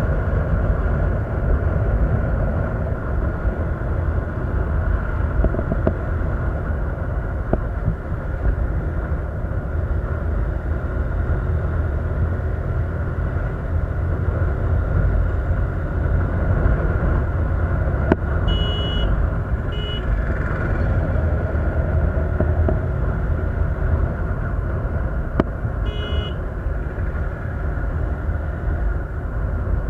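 Road vehicle on the move: a steady engine and road rumble, with a few short high beeps a little past the middle and again near the end.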